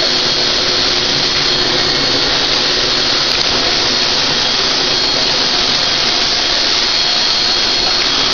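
HVLP spray turbine running steadily while the spray gun lays down coating: a loud, even rushing hiss with a thin high whine.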